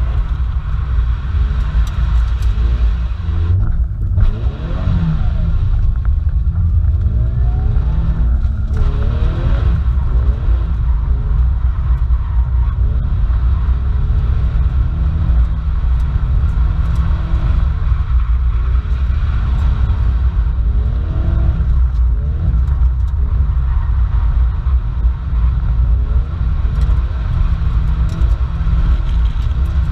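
Toyota 86's flat-four engine heard from inside the cabin, revving up and falling back again and again as the car is driven hard, over a steady low road rumble. The rises and falls come thickest in the first ten seconds and again about twenty seconds in.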